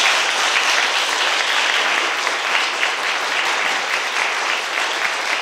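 Audience applauding, a steady crackle of many people clapping that eases slightly near the end.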